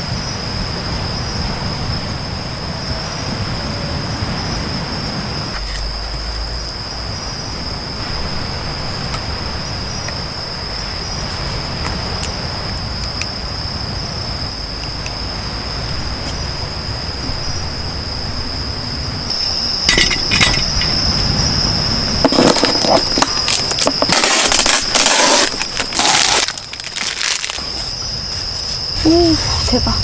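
Insects shrilling in one steady high-pitched drone, with a low background hum. Loud rustling and clattering noises break in for several seconds past the middle.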